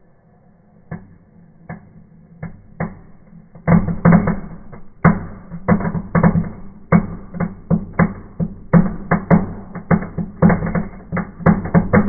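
Fireplace firework (a red "Knallbonbon" crackler) going off in the fire: a few single sharp cracks from about a second in, then from about four seconds a rapid, irregular string of loud crackling pops.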